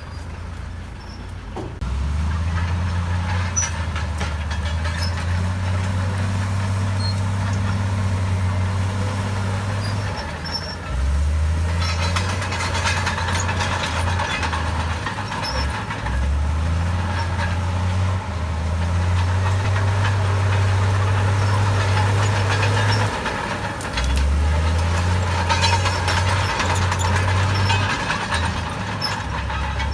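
Komatsu D68 bulldozer's diesel engine working under changing load, its low drone dropping and picking up again several times. Louder clatter twice, a few seconds at a time, fits the tracks and blade pushing soil.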